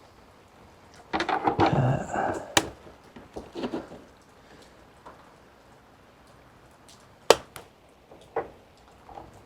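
Hand-tool and parts handling while fitting an air line: a clatter of rattling and scraping about a second in, then a few sharp metallic clicks and knocks, the loudest a little past the middle.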